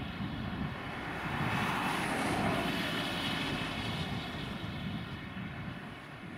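Airbus A320's IAE V2500 turbofan engines climbing away after takeoff, heard from the ground as a steady jet roar. It swells about two seconds in, then slowly fades.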